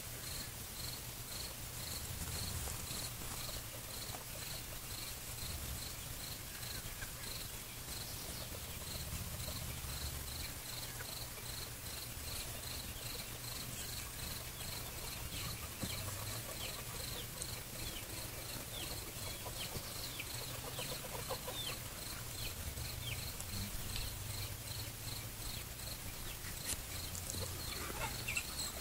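A cricket chirping steadily, about two short high chirps a second, with scattered quick bird chirps and a faint low hum underneath.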